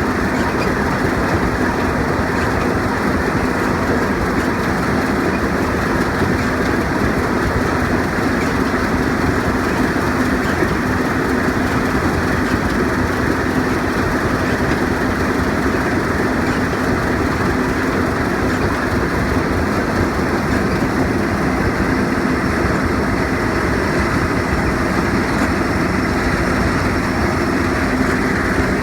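John Deere combine harvester running steadily while harvesting: a constant, unchanging drone with a steady hum.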